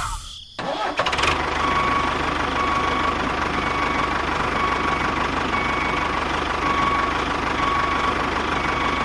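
An engine running steadily at an even speed, with a short dropout just after the start.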